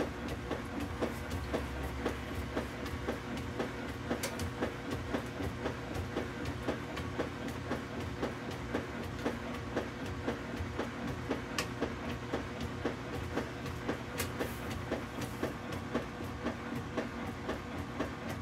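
KitchenAid Superba top-load washer agitating a full load: the agitator's back-and-forth strokes churn water and clothes in a steady, even rhythm of about two strokes a second.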